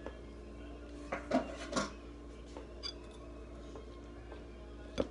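A few short clinks and scrapes of kitchenware (a measuring cup, spoon and glass shakers being handled on the counter), clustered about a second in with another small click near the end, over a faint steady hum.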